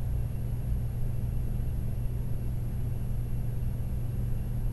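Steady low background hum, even throughout, with nothing else standing out.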